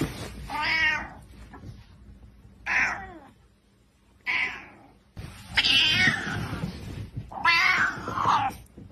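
Grey tabby cat meowing angrily, about five drawn-out calls, the later ones longer.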